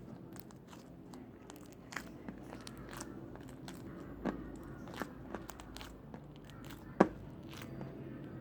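Slime being squeezed and poked by hand, making scattered small crackles and pops, with a sharp loud pop about seven seconds in.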